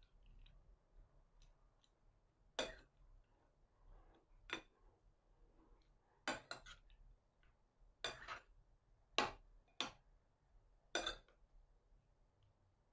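Metal spoon tossing salad in a ceramic bowl, the spoon clinking against the bowl about eight times at irregular intervals.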